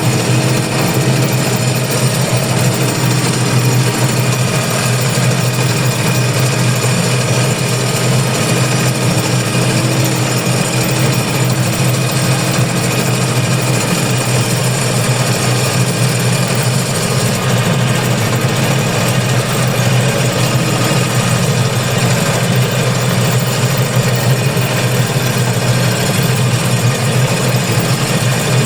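Engine of peat-harvesting machinery running steadily, a constant loud hum with mechanical clatter and noise over it.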